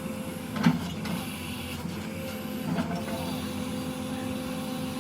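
JCB 3DX backhoe loader's diesel engine running steadily with a whirring hum, with a sharp knock about a second in and a lighter one near the middle.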